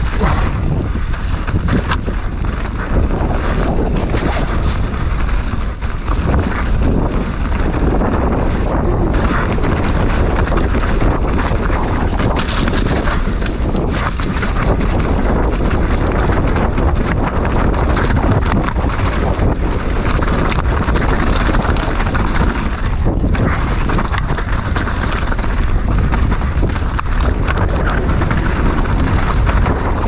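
Wind buffeting a helmet-mounted GoPro's microphone during a mountain-bike descent, a steady low rumble, with tyre noise on dirt and loose rock and frequent knocks and rattles from the bike over the bumps.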